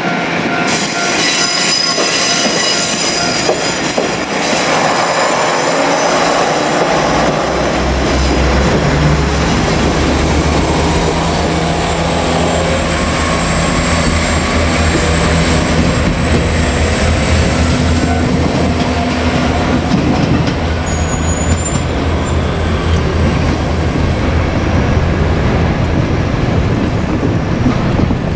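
JR Kyushu KiHa 47 diesel railcar running on the track, with high wheel squeal in the first few seconds. From about seven seconds in, its diesel engine settles into a steady low drone over rail noise.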